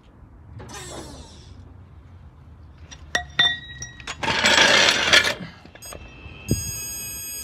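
Hydraulic floor jack being lowered: a few clicks, then a hiss lasting about a second as the release valve lets the car down. Near the end a digital torque wrench on the wheel bolts beeps with steady electronic tones as it reaches its set torque.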